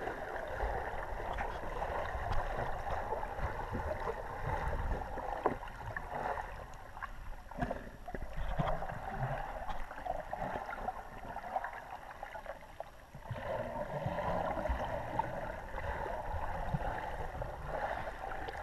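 Muffled underwater noise heard through a GoPro's waterproof housing: a steady hiss with low rumbling and scattered faint clicks, dipping briefly about thirteen seconds in.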